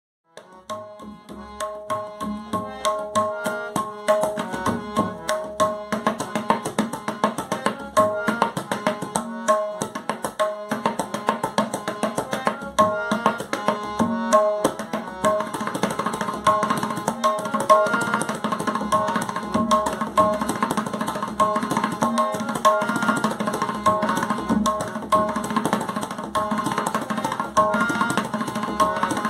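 Instrumental background music: fast hand-drum strokes over a repeating melody, fading in at the start.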